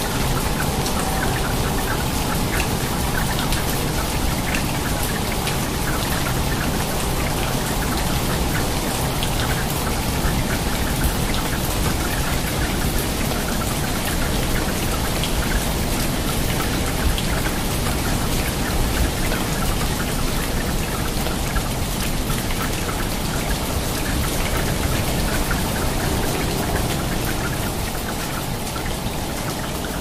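Steady rain falling onto water: a dense, even patter of many drops splashing.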